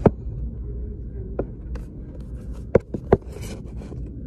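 Handling noise: four short knocks with faint rubbing and scraping over a steady low room rumble.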